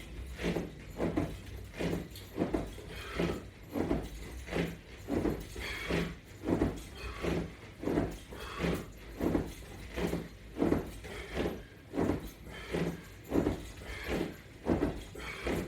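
Steady rhythm of a person's effortful breaths, about three every two seconds, keeping time with repeated crunches against a resistance band.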